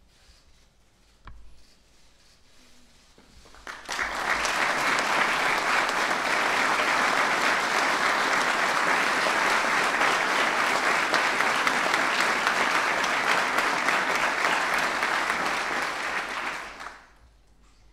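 Audience applauding, starting about four seconds in, holding steady and dying away near the end.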